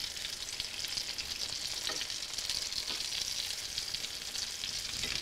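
Egg-battered chicken cutlets sizzling in olive oil in a skillet, with a steady hiss. A fork and spatula click faintly against the pan a couple of times.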